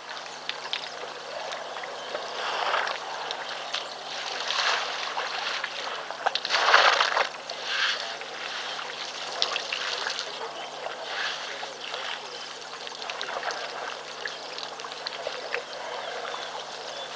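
Water trickling and splashing in uneven surges as African elephants drink at a waterhole, the strongest surge about seven seconds in, over a steady low hum.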